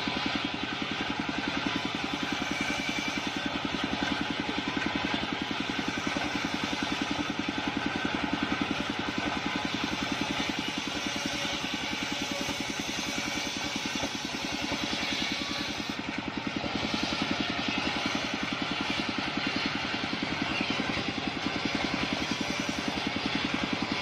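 Small engine of a portable circular sawmill running steadily while its large circular blade rips a long sengon board lengthwise, the cutting noise over the engine's hum.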